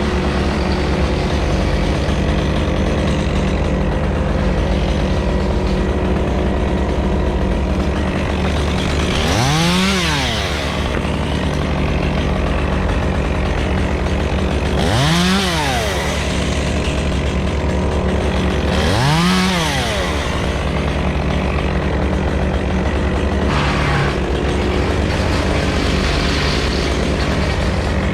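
Stihl gas chainsaw revved in three short throttle blips, each rising and falling in pitch, over a steady low engine drone.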